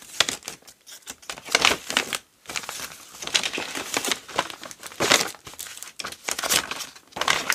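Paper pages of a handmade junk journal rustling and crinkling as they are handled, in irregular bursts with short pauses.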